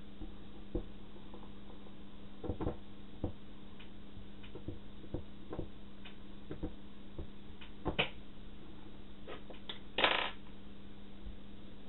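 Marker pen writing on a small whiteboard: scattered light taps and scratches of the pen tip, over a steady low hum.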